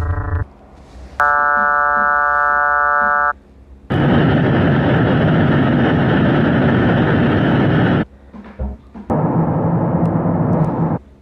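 A run of electronic space-sound clips presented as the sounds of moons: a buzzing tone with many overtones for about two seconds, then a loud, even rumbling noise for about four seconds, and after a short gap another rumble of about two seconds.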